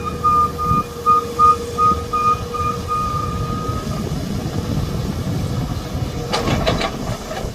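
Heavy machine's diesel engine running, with a rapid repeating electronic beeping alarm that stops about four seconds in. A quick cluster of sharp knocks near the end.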